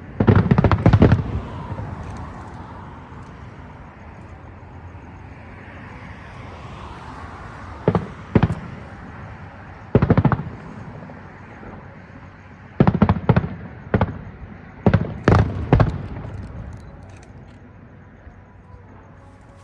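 Aerial fireworks shells bursting overhead: a quick cluster of loud bangs at the start, single bangs around eight and ten seconds in, and a rapid run of bangs from about thirteen to sixteen seconds, with a steady hiss between them.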